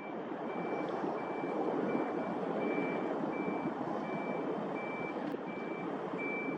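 An electronic warning beeper, of the reversing-alarm kind, sounds one even high beep about every 0.7 seconds over a steady noisy background.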